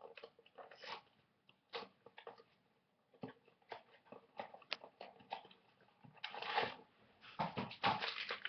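A Vinylmation blind box being opened by hand: scattered clicks and taps of cardboard packaging, then louder crinkling and rustling from about six seconds in.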